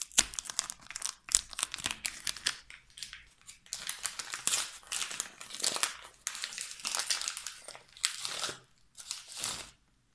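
Gift wrapping on a small package being torn and crumpled by hand as it is unwrapped, in irregular crackling bursts with short pauses between them.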